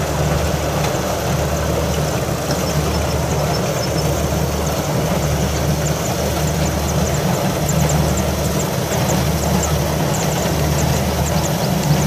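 Farm tractor's diesel engine running steadily as it tows a trailer slowly across the rice field: a low drone with a slow, even pulse. Faint rapid high ticking joins it in the second half.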